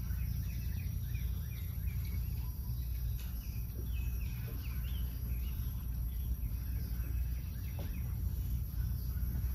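Steady low background hum with faint bird chirps scattered throughout.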